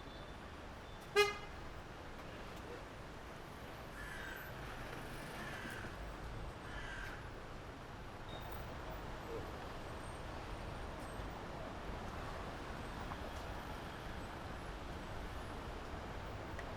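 Street ambience with a steady low traffic rumble; about a second in, one short, loud horn toot, then three harsh bird calls a few seconds later.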